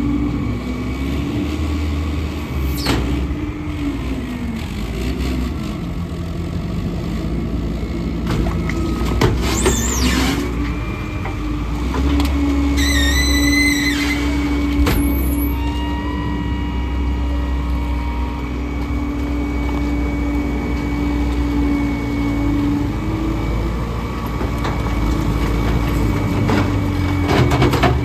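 Heavy diesel engines of a garbage truck and a wheel loader running steadily, their revs shifting up and down a few times. A brief high squeal sounds about halfway through, with scattered knocks of debris and metal.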